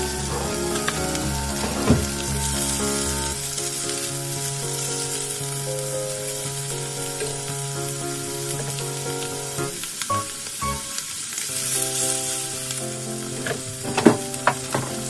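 Squid rings and tentacles sizzling in hot oil in a frying pan, a steady hiss, with a few sharp clicks near the end. Background music plays throughout.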